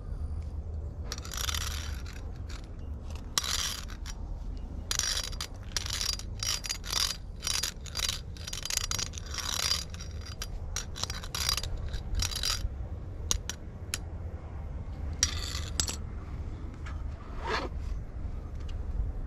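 Metal claw-tipped scratcher dragged and scraped across rough asphalt in many short, irregular strokes, bunched over the first two-thirds with a few more scrapes near the end.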